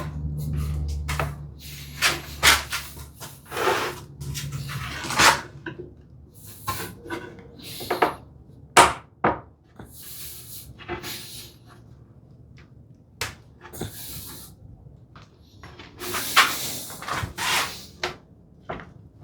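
Ash boards knocking and bumping as a hand-cut dovetailed cabinet case is dry-assembled. The joints are tapped home with irregular wooden knocks, some sharp, between shorter scrapes. A low hum runs through the first few seconds.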